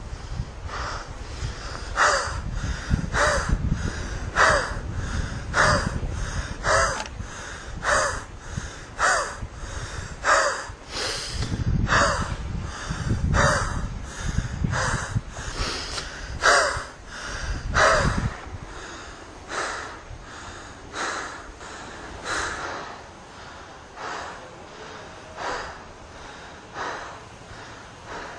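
A person breathing hard and rhythmically, one sharp breath about every second, then slowing to about one every second and a half and growing quieter in the last third. A low wind rumble on the microphone lies under the first two-thirds.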